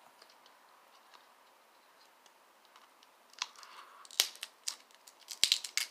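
Handling of a foil-sealed plastic toy volcano shell: near quiet at first, then from about three and a half seconds in a run of sharp clicks, knocks and crinkling, with two louder knocks.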